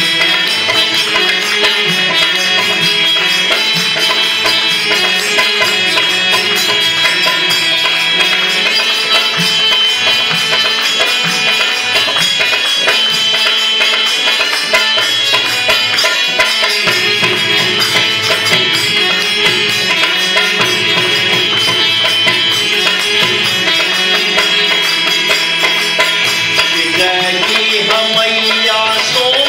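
Traditional Bhojpuri devotional music in an instrumental passage: steady held tones over hand-drum and jingling percussion, with a singing voice coming back in near the end.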